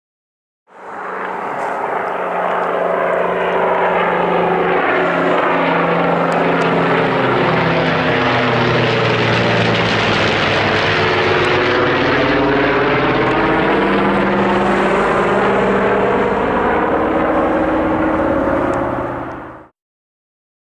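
DC-10 air tanker's three turbofan engines at takeoff power as it climbs out and passes overhead. The sound swells in over the first few seconds, holds loud and steady, and fades away near the end before cutting off.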